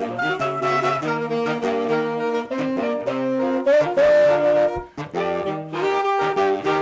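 Saxophone quartet playing a chordal arrangement, the saxophones holding and moving between notes together in close harmony, with a short break about five seconds in.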